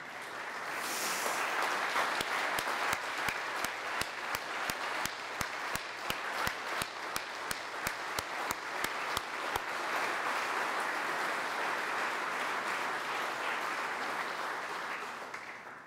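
Audience applauding, starting at once and fading out near the end. For the first half, one clapper close by stands out with sharp, steady claps about three a second.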